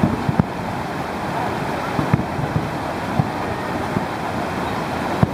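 Aerial firework shells bursting at a distance: irregular dull low thuds, about one or two a second, over a steady background of wind noise on the microphone and crowd voices.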